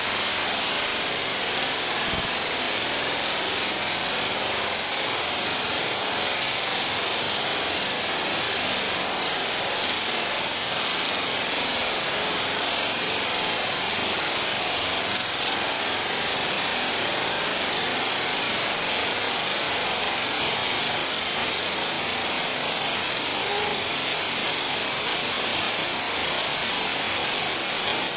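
Heavy rain pouring down steadily: a dense, even hiss that does not let up.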